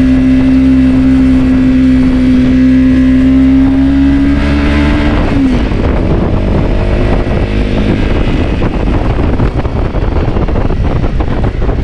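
Off-road motorcycle engine running hard at a steady, high pitch that creeps slightly upward, then falls sharply about five seconds in as the throttle closes. After that comes a lower, rougher engine sound with frequent knocks and rattles.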